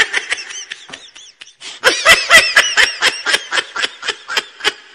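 High-pitched laughter: a rapid run of short bursts, fainter at first and louder and closer together from about two seconds in.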